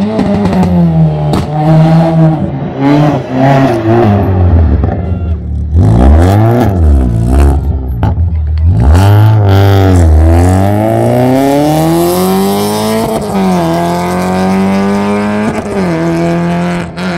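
Race car engine at full throttle, climbing in pitch through the gears with quick breaks at each shift. Around the middle the pitch swoops down and back up sharply, then rises in one long sweep and holds a steady note near the end.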